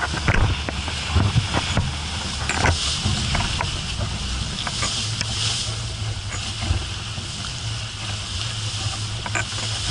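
Water rushing and hissing along the hull of a Dehler 36 CWS sailing yacht heeled over and driving through waves, with wind buffeting the microphone as a steady low rumble. Scattered sharp knocks and clatters sound throughout, most often in the first few seconds.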